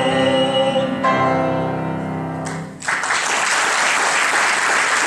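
End of a tenor-and-piano opera aria. The tenor's held last note gives way about a second in to a closing piano chord that dies away. About three seconds in, the audience starts applauding.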